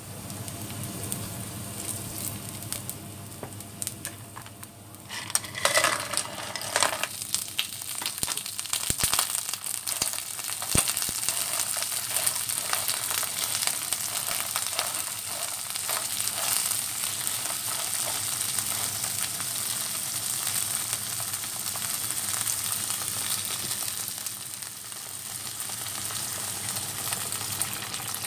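Ginger and garlic sizzling in hot oil in a pot. About five seconds in, clams are tipped in with a clatter of shells knocking against the pan, and then the clams keep sizzling and crackling in the oil as they are stirred.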